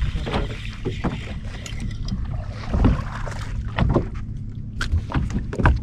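Scattered knocks and thumps on a bass boat while a largemouth bass is brought aboard, over a steady low hum.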